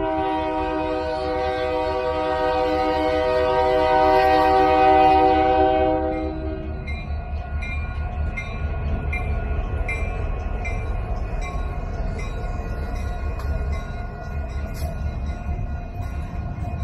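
Locomotive air horn sounding one long steady blast, building a little louder before cutting off about six to seven seconds in, over the low rumble of the train. The rumble carries on after the horn, with a faint regular clicking about twice a second.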